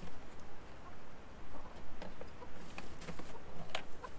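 Chickens clucking softly in a wooden coop, with a few knocks and rustles from the coop's hatch as it is opened and a hand reaches in; the loudest is a sharp knock near the end.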